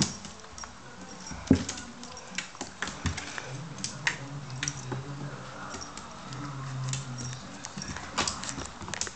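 Chorkie puppy's claws clicking and scrabbling against a bathtub as it tries to climb out: a scatter of light, irregular clicks and scrapes. A faint low hum comes and goes twice in the middle.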